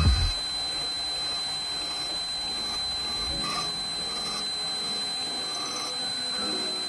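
1940s German FLOTT drill press running with a steady high whine. A heavy low rumble from the bit cutting into the steel plate stops a fraction of a second in, leaving the machine spinning on its own.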